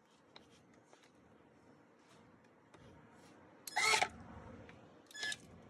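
Quiet handling of metal disposal mounting parts while they are turned and tightened, with a short ringing metallic clank about four seconds in and a smaller clink about a second later.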